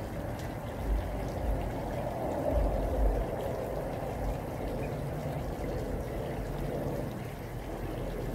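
Liquid pouring from a plastic watering can onto plants, over the steady splashing of a small pond waterfall. A couple of low rumbles stand out about a second in and about three seconds in.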